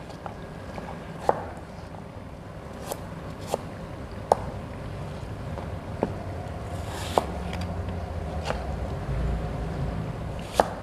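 Chef's knife cutting green apple on a plastic cutting board: single sharp knocks, one every second or so, as the blade meets the board. A low rumble rises in the second half.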